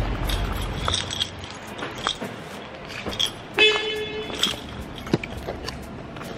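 Footsteps clicking on the hard floor of a parking garage. About three and a half seconds in, a short car horn beep sounds for about half a second.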